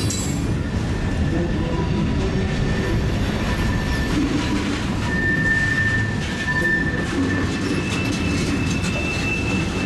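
Freight train of tank cars rolling past, a steady rumble of wheels on rail. Thin wheel squeal sounds midway, and a higher-pitched squeal sets in near the end.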